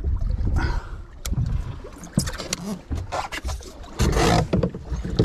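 Water washing against the hull of a small boat drifting at sea, with a low rumble and scattered knocks and clicks from fishing gear being handled aboard; a louder rush about four seconds in.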